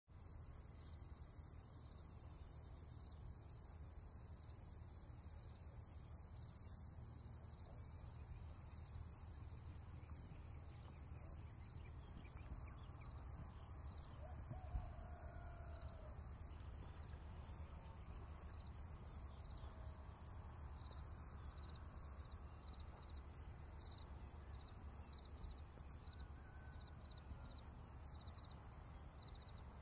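Near silence: faint room tone with a steady high-pitched chirring over a low hum, and one soft knock about fifteen seconds in.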